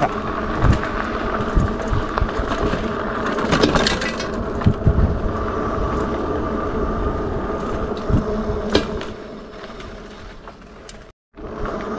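Whine of the Cmacewheel GW20 Plus e-bike's 750 W rear hub motor while riding, with knocks and rattles from the bike going over rough road. The sound fades out near the end and then cuts off.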